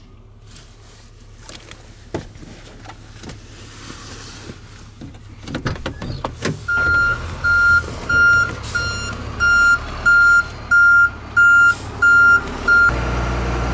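Flatbed tow truck's reversing alarm beeping steadily, about ten beeps, as it backs up. A few small clicks and knocks come first, and a low engine rumble grows louder near the end.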